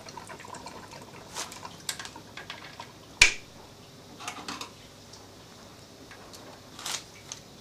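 Scattered light metallic clicks and clinks of hands working at a lathe chuck, swapping a crankcase casting, with one sharp click about three seconds in.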